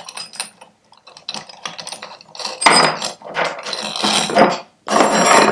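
A ratchet spanner clicking through several strokes, with metal clinks, as the nut on a threaded-bar puller is wound to press the gudgeon pin out of a piston. The loudest strokes come a little after halfway and near the end.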